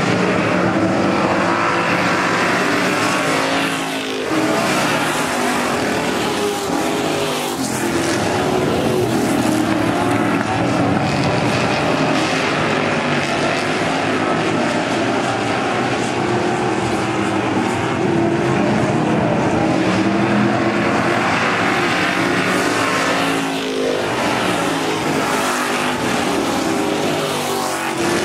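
A pack of eight-cylinder stock cars racing on a dirt oval, several engines running at once at full throttle. Their pitch rises and falls as cars sweep past, most clearly about four seconds in and again near the end.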